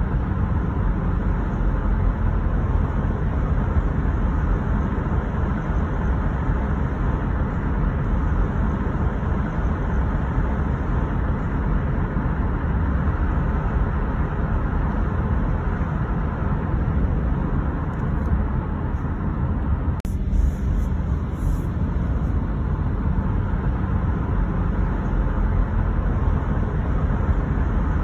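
Steady road noise of a car driving, rumbling low with tyre and engine hum and no changes in pace, with one brief click about twenty seconds in.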